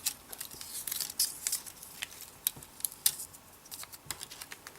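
Paper leaflets and small packaging being handled: an irregular string of light crinkles, taps and clicks.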